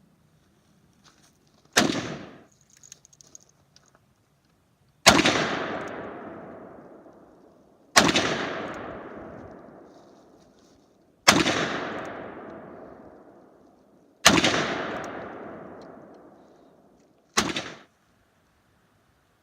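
Six rifle shots fired a few seconds apart, with faint clicks soon after the first. Four of the shots trail off in a long rolling echo of about three seconds; the first and last cut off short.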